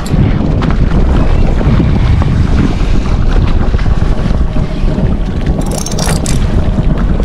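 Heavy wind blowing across the microphone on a boat at sea, with the wash of water beneath it. Short hissy bursts come twice, around six seconds in.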